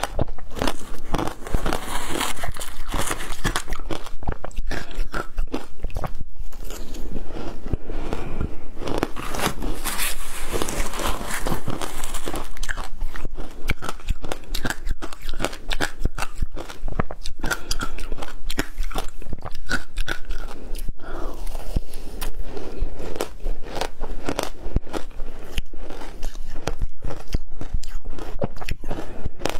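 Shaved ice topped with passion fruit and matcha powder being bitten and chewed, a dense run of crunching and crackling that goes on without a break.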